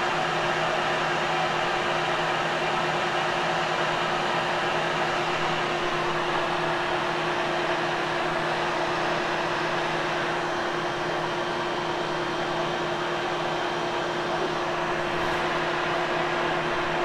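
Vacuum cleaner running steadily on carpet, an even rushing noise with a constant motor hum.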